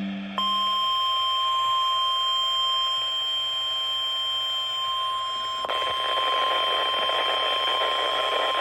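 Weather radio alert tone: a single steady high tone held for about eight seconds over radio static, the signal that a National Weather Service warning is about to be read. A brief lower tone sounds at the very start, and the static grows louder a little past halfway.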